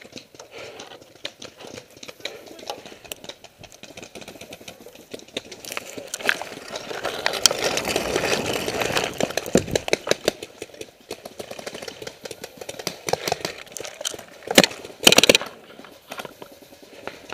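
Footsteps and rustling as a paintball player runs through tall dry grass, with many sharp clicks and pops throughout. Two loud short bursts of noise come near the end.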